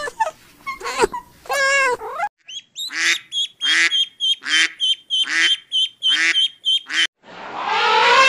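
A kitten mewing for the first two seconds. Then a duck quacking repeatedly, about two quacks a second. Near the end an elephant trumpets, a long rising blare.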